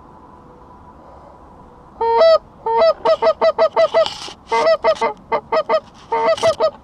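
Canada goose honking: a rapid run of short two-note honks and clucks, each breaking from a low note up to a higher one, starting about two seconds in and pausing briefly twice.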